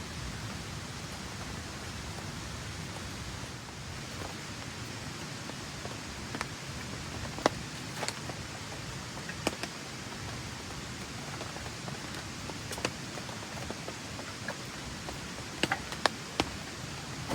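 Steady hiss of rain falling, with sharp single taps scattered through it, several close together near the end.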